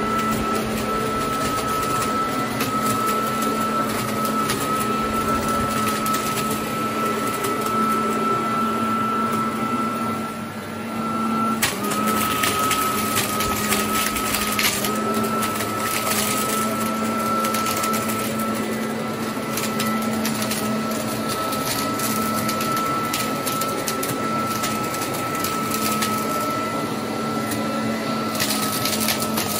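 Parkside PLS 2600 B2 electric leaf blower-vacuum running steadily with a high, even motor whine over a lower hum. About ten seconds in, the sound drops away for a moment, then picks up again at the same pitch.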